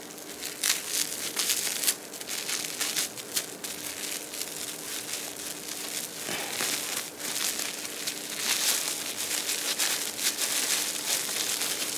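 Clear plastic wrap crinkling and crackling as hands peel it off a sandwich, in irregular rustles throughout.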